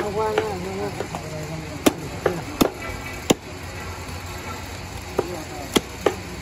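A heavy butcher's cleaver chopping through a section of buffalo ribs on a wooden stump chopping block: a run of sharp, irregularly spaced chops, about eight in all.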